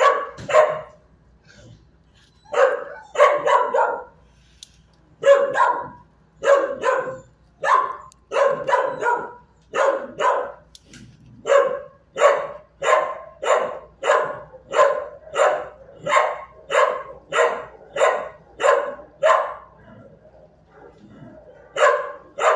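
A dog barking over and over, in uneven bunches at first, then in a steady run of about one and a half barks a second, with a short pause near the end before it starts again.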